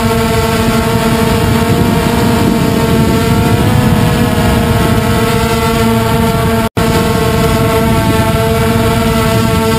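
Multirotor drone's motors and propellers whirring, a steady pitched hum with a rushing hiss. The sound cuts out for an instant about seven seconds in.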